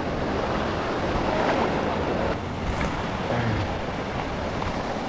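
Steady rushing noise of wind on the microphone, easing slightly about two and a half seconds in.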